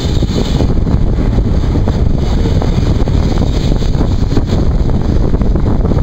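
Wind buffeting the microphone over the steady rumble of a moving express passenger train, heard from aboard the train as it runs through a curve.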